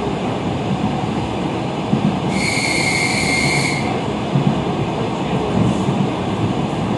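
Suburban electric train running, heard from inside the carriage: a steady rumble of wheels on rails. About two seconds in, a shrill high steady tone sounds for about a second and a half, then stops abruptly.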